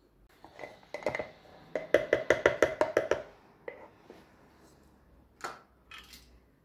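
A spoon knocking against a glass jar as honey, chopped onion and garlic are stirred, with a quick run of about eight ringing clinks in a row, then a couple of softer knocks near the end.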